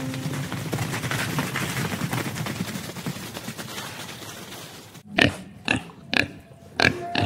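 Steady outdoor background noise. After about five seconds a boar grunts five times, short loud grunts about half a second apart.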